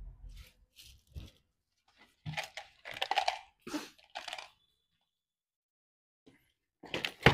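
Packaging being handled: several short bursts of crinkling and rustling, then after a pause a sharp knock near the end.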